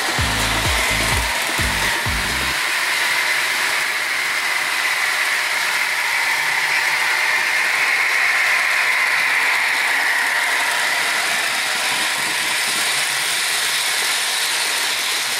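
HO scale model trains running on sectional track: a steady mechanical whir and rattle of small electric motors and wheels on rail joints, growing louder in the middle as a train passes close, then easing off.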